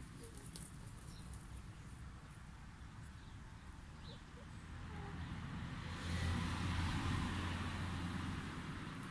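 A low engine rumble, as of a vehicle passing at a distance, swelling about six seconds in and fading again, with a few faint short chirps.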